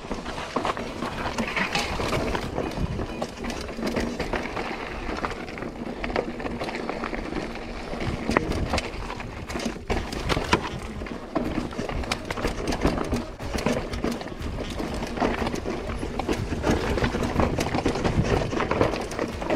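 Lapierre Zesty full-suspension mountain bike clattering down a rocky trail: tyres crunching over gravel and stone while the frame and chain rattle. Irregular sharp knocks from rock impacts run throughout, with a few louder hits about halfway through.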